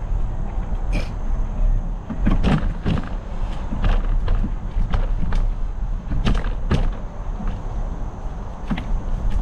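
Specialized Epic mountain bike riding along a dirt trail: a steady wind rumble on the microphone and tyre noise, with irregular knocks and rattles from the bike going over bumps, most of them between about two and seven seconds in.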